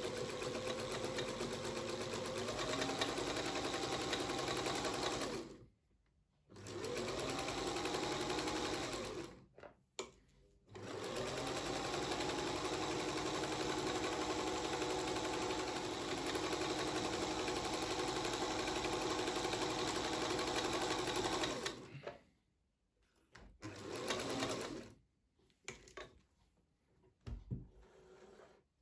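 Singer 221K Featherweight electric sewing machine stitching through fabric, running in three long runs with brief stops between, its pitch rising as the motor gets up to speed at each start. Near the end there is one short burst and a few faint clicks.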